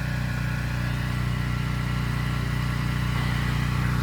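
Small engine of a pressure-washing rig running steadily at a constant speed, a low even drone with a fast regular pulse.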